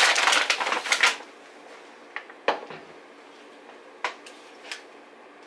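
Kitchen handling sounds: a loud rustling clatter lasting about a second at the start, then a few separate light knocks and clicks as containers and cupboards are handled.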